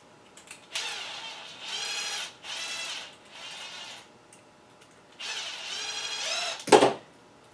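Handheld power drill driving screws in several short runs, its motor whine rising in pitch as each run starts, with a pause in the middle. A sharp knock comes near the end.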